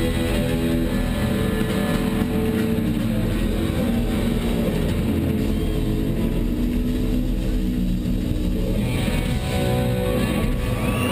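Loud live amplified band music with electric guitar in an arena, sustained held chords, heard from within the audience. Near the end the music thins out.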